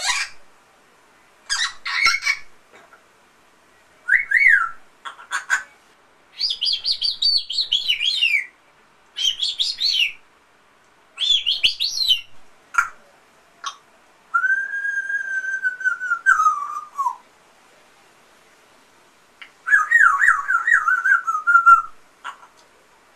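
African grey parrot whistling a string of short gliding and warbling calls. About halfway through comes one longer held whistle that drops in pitch at its end, and near the end a quick wavering trill.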